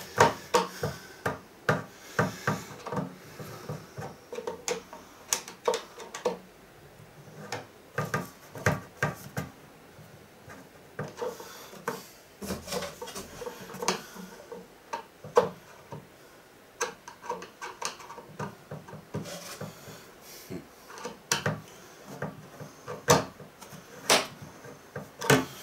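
Irregular knocks, taps and clicks of wooden panels and fittings being handled and fastened by hand while a wooden cat-litter cabinet is assembled, with some rubbing in between.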